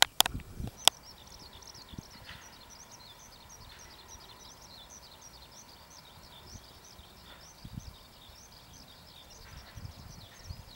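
Many small birds chirping and singing continuously in a dense, high-pitched chorus over open fields. Two sharp clicks come within the first second, and there are a few soft low thumps later.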